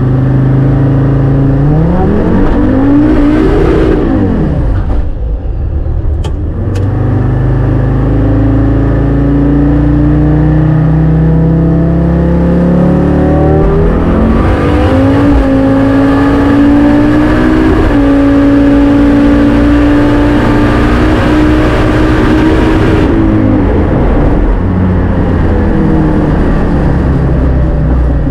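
Turbocharged GM Vortec 3500 inline five-cylinder in a drag car, heard from inside the cabin: a quick rev up and down, then a wide-open-throttle run with the pitch climbing and dropping back at two gear changes. Over the last few seconds the driver lifts off and the engine winds down.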